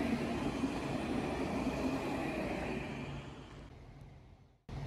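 Alstom Citadis 402 tram running past, a steady rolling noise with a low hum. It fades away from about three seconds in and cuts out briefly, and a different steady background noise starts right at the end.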